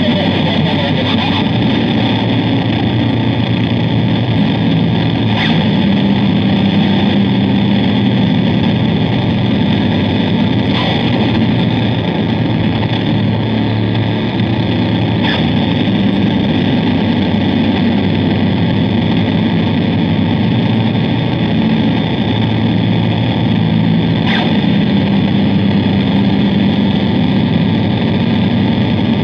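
Harsh noise drone from an Ibanez GSR200 electric bass played through a Zoom G1Xon multi-effects pedal, heavily distorted. It makes a loud, dense, unbroken wall of noise over a sustained low drone, with a few brief crackles every several seconds.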